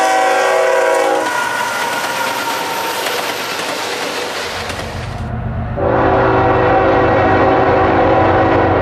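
Diesel locomotive horn blowing at a grade crossing, cutting off about a second in, followed by the steady rushing noise of autorack freight cars rolling past. About two-thirds of the way through, a different train's horn starts blowing over a low engine rumble.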